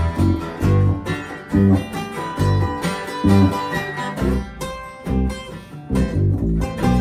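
Acoustic string band playing an instrumental passage: acoustic guitar strumming over bass notes on a steady beat, with a melody line above.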